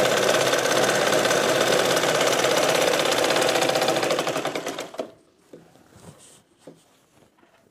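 Domestic sewing machine running steadily at speed while stitching a seam, stopping about five seconds in. After that, only faint clicks and rustles as the fabric is handled.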